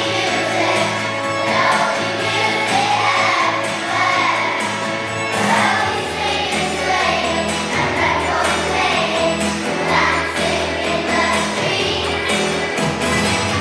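Children singing together as a choir with instrumental backing; deeper bass notes join about five seconds in.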